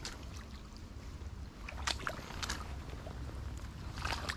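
River water running, with a low wind rumble on the microphone. A few short splashes come as a landing net is worked in the shallows: one at the start, two in the middle and one near the end.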